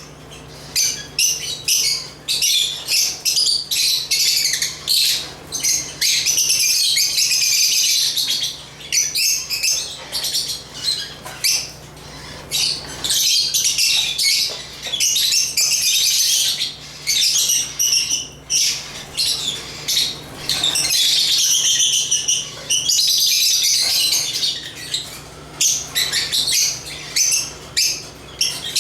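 Lovebirds chirping and squawking in a fast, continuous high-pitched chatter, in dense runs broken by short pauses.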